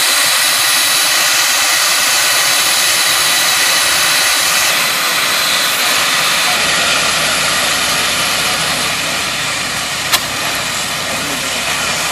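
A 112-year-old steam traction engine hissing steam loudly and steadily, with no exhaust beat. A single sharp click comes about ten seconds in.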